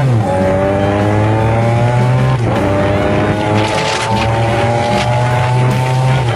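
High-revving racing engine accelerating through the gears: its pitch climbs steadily, drops sharply at a gear change about two and a half seconds in, then climbs again until another shift near the end.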